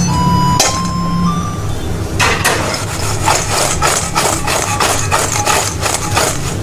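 A metal fry basket being shaken and knocked against a deep-fryer pot: a rapid run of metallic knocks, about four a second, lasting roughly four seconds. Near the start come a few short steady tones, each a little higher than the last.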